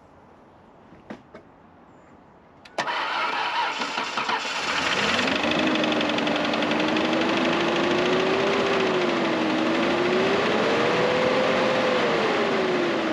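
A 1996 Ford Ranger's 3.0-litre V6 cranked by the starter, catching after a couple of seconds and then running, its speed wandering up and down. The engine has a bad misfire.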